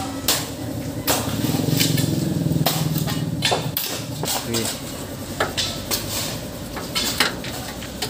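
An engine idling steadily under repeated sharp metallic clanks and taps.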